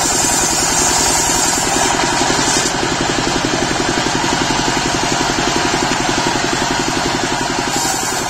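Engine of a portable circular-saw sawmill running steadily with an even, rapid beat, driving the saw blade while a teak log is fed through it.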